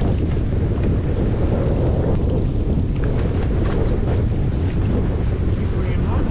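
Strong wind buffeting the microphone in a steady rush, over the sound of water on a boat in rough, choppy conditions.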